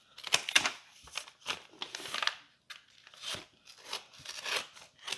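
Brown butcher-paper wrapping crinkling and tearing as a taped package is unwrapped, in a string of irregular rustles and rips.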